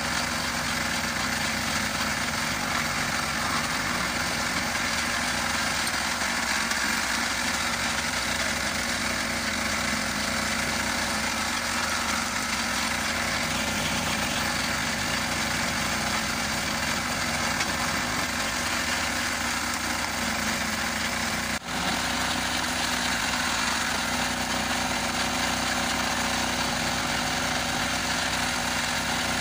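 Walk-behind tractor engine running steadily, driving a homemade screw log splitter whose threaded cone turns as logs are pushed onto it. There is one brief break in the sound about two-thirds of the way through.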